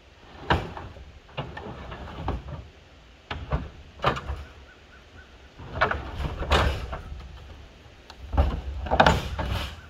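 Knocks, scrapes and rattles of an IBC tote, a plastic tank in a steel cage, being shoved and tipped over on a steel trailer, in about ten separate clatters with the loudest near the end. A low rumble of wind on the microphone runs underneath.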